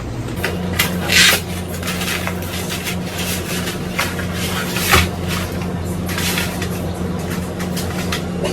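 Dry spaghetti and its box or packaging being handled and dropped into a pot of water: irregular rustling and crackling with a few louder clatters, over a steady low hum.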